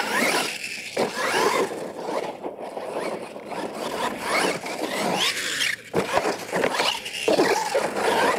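Electric radio-controlled monster truck driving on dirt. Its motor and gear whine rises and falls again and again with the throttle, and drops away briefly a little before six seconds in.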